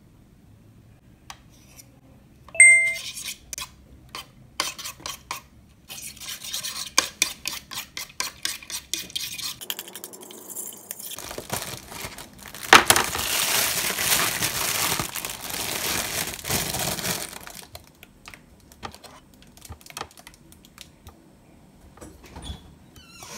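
A metal fork strikes a ceramic plate with one sharp ringing clink, then taps and scrapes against it in fast, irregular strokes while beating raw eggs. Midway comes several seconds of louder, denser scraping and rustling, after which only a few soft clicks remain.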